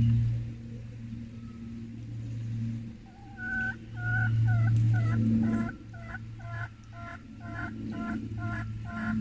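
Poultry calling: from about 3 seconds in, a bird's call repeats in a steady series of about two notes a second, over a low rumble that swells and fades.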